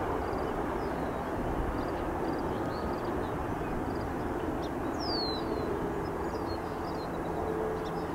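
Distant Boeing 737-500's CFM56 jet engines running at low power as it rolls along the runway after landing: a steady rumble and hiss. Faint bird chirps sound over it, with one sweeping call about five seconds in.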